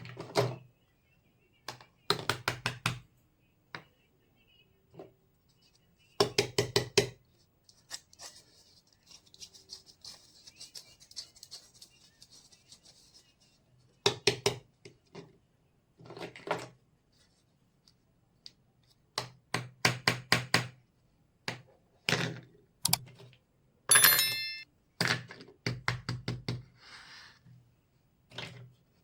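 Miniature toy kitchen pieces being handled and set down: clusters of quick clicks and knocks, with a soft rustle about ten seconds in and one bright ringing clink late on.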